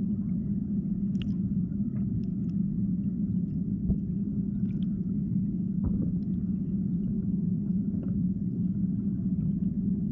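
Underwater river sound heard through a submerged camera: a steady low rumble of flowing water, with a few faint clicks and ticks scattered through it.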